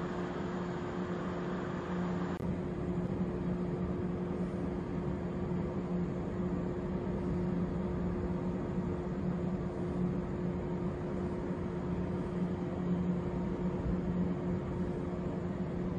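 Parked 415 series electric train idling with a steady electrical hum, two low tones over a rumble. A higher hiss drops away about two seconds in.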